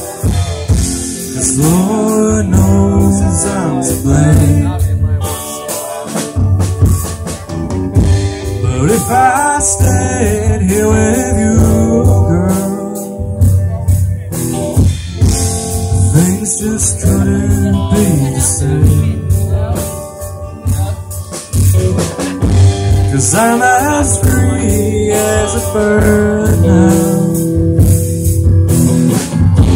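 Live rock band playing a song: sung vocals over electric guitars, bass guitar and a drum kit with cymbals, through a PA.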